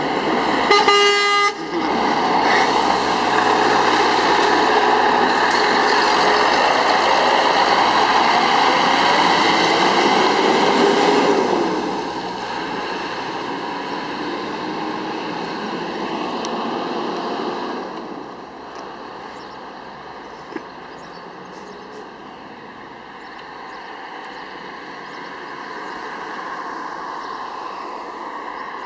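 Scania R-series truck sounding its horn in one short blast about a second in, then its diesel engine running loudly as it drives past, the noise falling away after about twelve seconds and again after about eighteen as it leaves.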